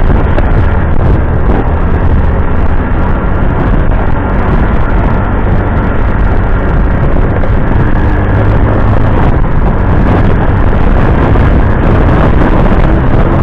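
Motor scooter on the move: wind buffeting the microphone and road noise, with the small engine a steady low drone underneath.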